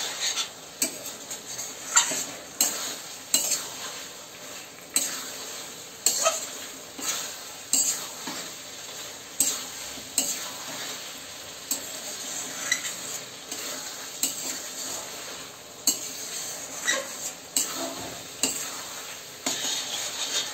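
Mutton and spice masala sizzling in oil in a kadai while a metal spatula stirs it, with irregular sharp scrapes and clinks of the spatula against the pan about once a second. This is the kasha stage: the meat is dry-fried until the spices release their oil.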